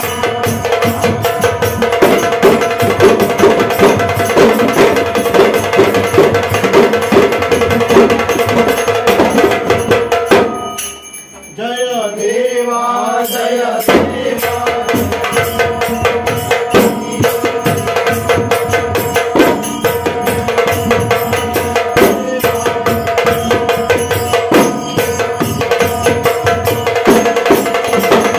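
Ghumat arati music: ghumat clay-pot drums and a stick-beaten drum playing a fast, driving rhythm under group chanting. The music stops for about three seconds near the middle, then picks up again.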